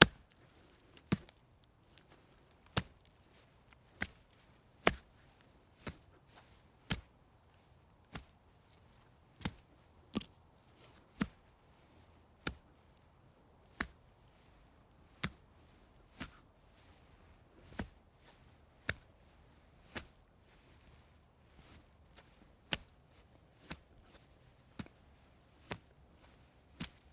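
Stone being slapped, one sharp slap at a time, roughly once a second at uneven intervals, some slaps louder than others.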